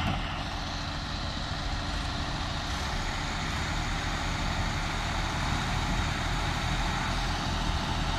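Diesel engines of two four-wheel-drive tractors, an Eicher 650 and a John Deere, running under load as they push nose to nose against each other: a steady engine rumble.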